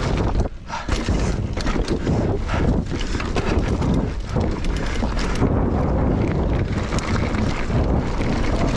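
Mountain bike ridden fast down a dirt trail: wind rushing over the microphone and the tyres and frame rattling with many small knocks over roots and bumps, with a brief lull about half a second in.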